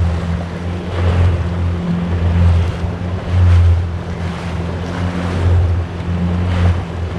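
Yamaha FX HO WaveRunner running steadily at trolling speed: a low engine hum that rises and falls in level, over the rush of wake water and wind buffeting the microphone.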